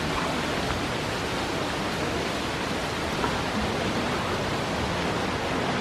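Steady rush of fast-flowing water, an even hiss with no breaks.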